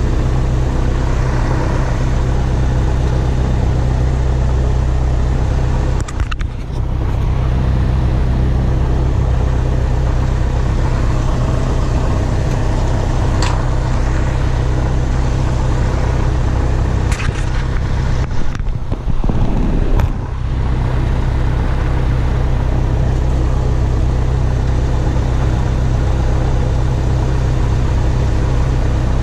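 Cessna 172's piston engine and propeller running steadily at low power, a loud even drone heard from inside the cockpit. The sound briefly dips about six seconds in and again around eighteen to twenty seconds, with a few clicks.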